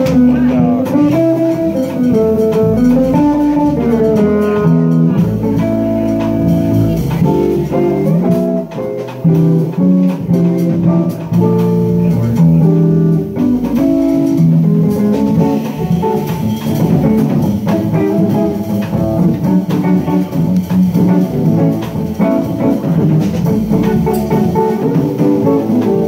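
Jazz trio playing live: a hollow-body archtop electric guitar plays melodic lines over bass and drum kit.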